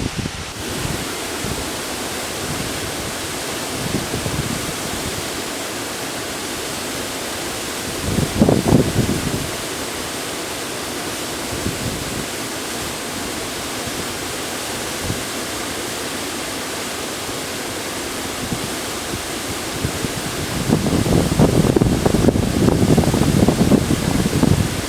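Steady rushing of river water, with gusts of wind buffeting the microphone about eight seconds in and again through the last few seconds.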